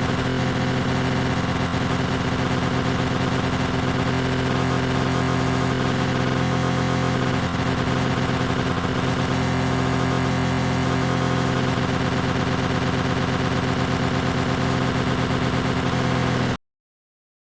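Lawn mower running at a steady speed, a constant motor hum with blade whir, starting and cutting off abruptly about three seconds before the end.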